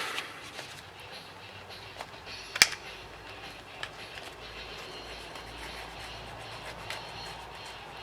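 A few sharp, light clicks and taps of small hand tools working on a tablet's screen and frame, the loudest about two and a half seconds in, over a faint steady hiss.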